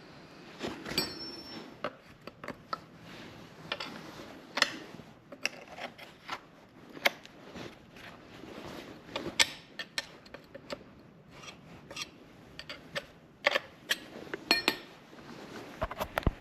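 Irregular clicks, knocks and light metallic clinks of hand tools and chainsaw parts being handled and worked on during saw maintenance.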